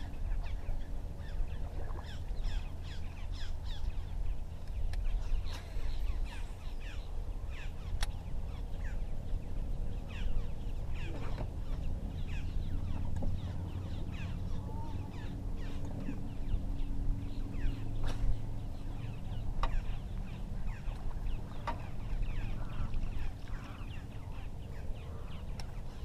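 A chorus of many birds calling at once: a dense stream of short, falling chirps and calls, several every second, over a low steady rumble.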